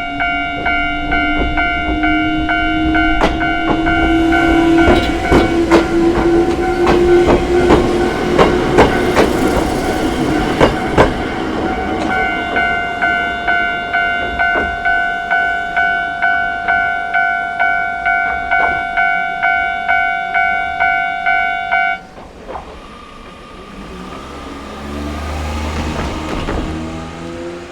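Japanese level-crossing alarm bell clanging about twice a second while an electric train of the Choshi Electric Railway passes over the crossing, with a whine rising in pitch and wheels clacking over the rail joints, loudest in the first ten seconds or so. The alarm cuts off suddenly about 22 seconds in.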